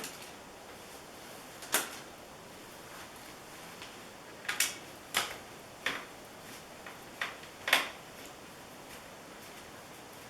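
A scattered series of short sharp clicks and light knocks, about seven of them with two of them loudest, from small bolts and tools being handled while a TV's back plate is taken apart.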